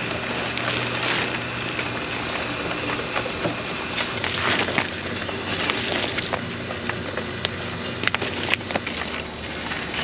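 Pot-filling machine running with a steady motor hum. Potting soil rushes through it in bursts, and plastic nursery pots knock a few times near the end.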